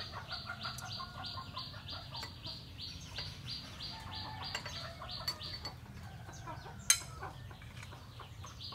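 Farmyard ambience: chickens clucking and birds chirping, with a rapid high chirp repeating about four times a second, and a single sharp clink about seven seconds in.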